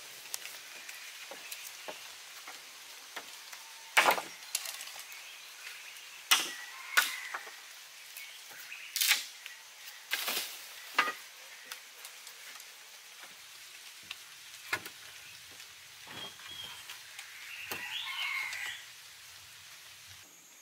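Wooden poles knocking against each other as they are laid in place: half a dozen sharp knocks spread over several seconds, with softer clicks between them and a short rustling scrape near the end, over faint forest background.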